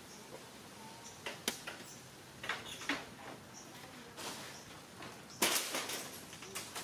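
Leaves and twigs rustling and crackling in a tree in short, irregular bursts, the loudest a little past five seconds in.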